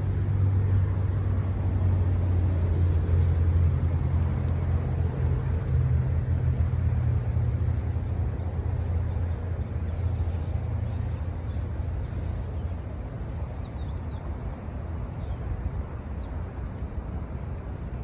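A steady low engine-like drone, loudest at first and fading over the last several seconds. Faint bird chirps come in near the end.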